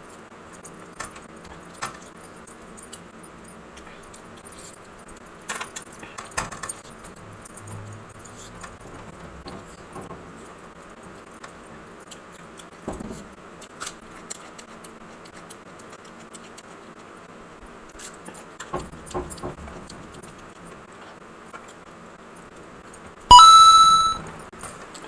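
Close-up eating sounds: chewing, with small clicks and smacks of food and fingers over a steady background hiss. About two seconds before the end, a short, loud ringing tone sounds.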